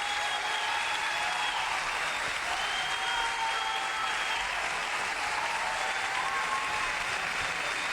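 Audience applauding steadily, with a few faint held higher tones drawn out over the clapping.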